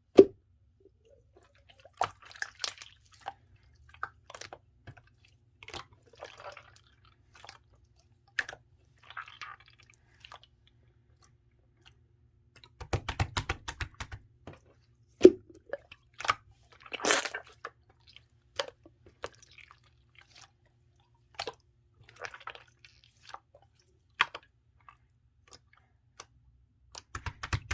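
Clear slime being squished and pressed by hand, giving scattered sticky clicks and short runs of small crackling pops, with two louder runs about midway.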